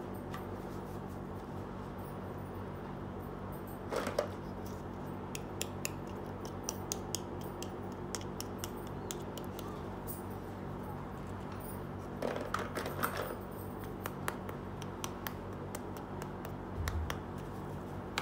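Small plastic toy pieces handled and set down on a cloth: scattered light clicks and taps with a few short rustles, over a steady low hum.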